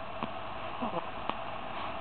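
Newborn baby's small sounds between hiccups: a soft click just after the start, a faint low grunt about a second in, and another soft click shortly after, over a steady hiss.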